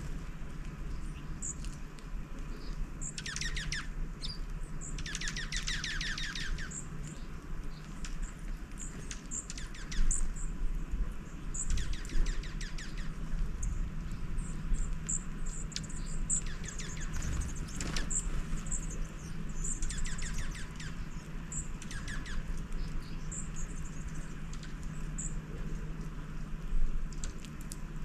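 Small songbirds chirping with many short, high calls, broken by several quick trills of rapidly repeated notes, over a steady low hum.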